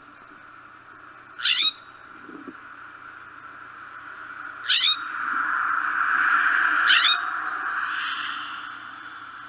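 California scrub jay giving three short, harsh calls a few seconds apart, over a steady background hum that swells in the middle.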